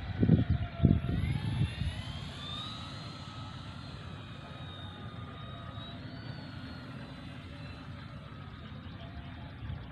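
Twin-motor RC floatplane taking off: a motor whine rises in pitch over the first couple of seconds, then holds steady as the plane climbs away. Two low thumps come in the first second.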